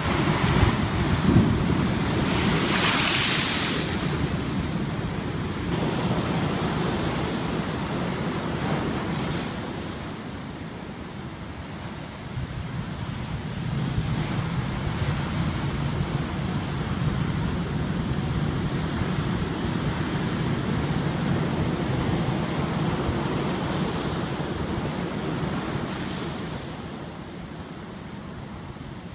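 Heavy ocean surf breaking and foaming over rocks. The loudest crash comes in the first few seconds; the roar eases about ten seconds in, builds again a few seconds later, and fades near the end.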